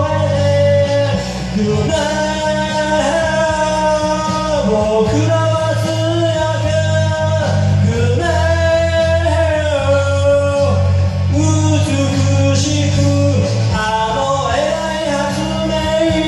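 Karaoke singing: a voice holding long sung notes over a rock backing track with bass and guitar.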